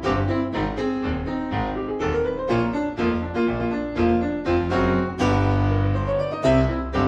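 Background music: a quick keyboard tune, piano-like, with a rising run of notes about two seconds in and again near the end.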